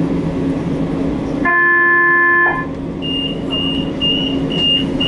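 A stopped tram hums steadily. About a second and a half in, a horn sounds once for about a second. It is followed by a run of high, short beeps about two and a half a second, typical of a tram's door-closing warning before it pulls away.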